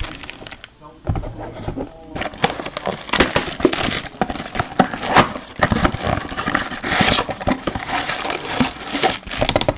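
Foil wrappers of 2020 Bowman Chrome trading-card packs crinkling and rustling as the packs are handled and sorted into stacks, along with the light scrape and tap of cardboard boxes being moved. The sound is quieter for about the first second, then becomes a dense, irregular run of crinkles.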